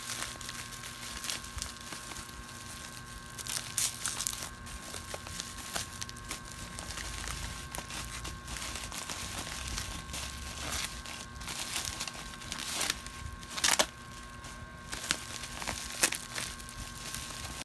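Plastic bubble-wrap mailer crinkling and crackling as it is handled and opened, with a few louder crackles. A ceiling fan hums steadily underneath.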